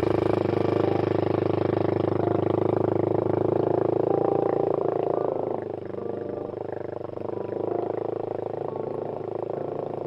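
Yamaha Raptor 250's single-cylinder four-stroke engine, fitted with a Barker full exhaust, running at idle just after being started, with a steady, even firing pulse that eases slightly about six seconds in. It is smoking on start-up, which the owner puts down to worn valve seals rather than rings.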